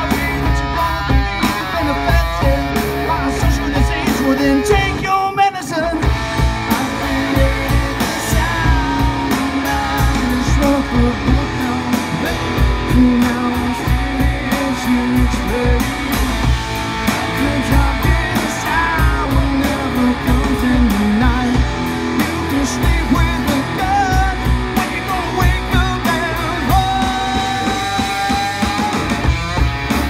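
Live rock band playing: drum kit keeping a steady beat under electric guitars and bass, with a male lead singer. A long note is held near the end.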